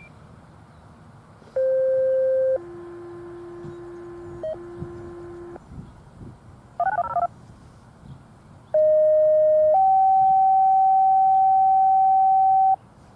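Fire-dispatch radio scanner playing two-tone sequential paging tones: a loud one-second tone, a quieter tone of about three seconds, a brief burst of mixed dial-pad-like tones about seven seconds in, then another loud pair, a one-second tone stepping up to a higher tone held about three seconds.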